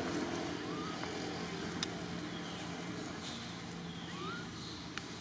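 Steady low engine hum, with two faint short rising chirps and two light clicks.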